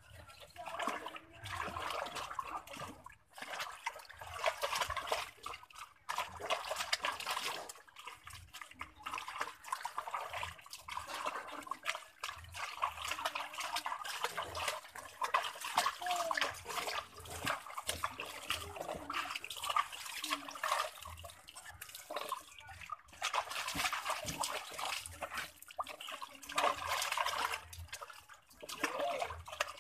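Water splashing and sloshing in a plastic tub as a hand scoops and pours it over an Asian palm civet being bathed, in uneven bursts.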